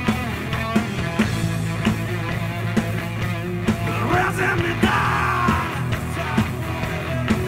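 A rock trio playing live at full volume: a distorted Les Paul-style electric guitar over electric bass and a steady, driving drum beat. About halfway through there is a brighter, wavering high passage.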